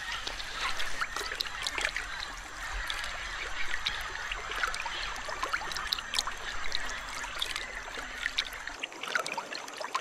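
Shallow river water splashing and trickling as a green anaconda moves through it, with many small drips and splashes over a steady watery wash.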